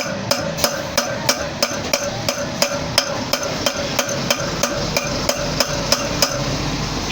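Hammer striking steadily at about three blows a second during repair work on a motorcycle wheel hub's key, stopping about six seconds in.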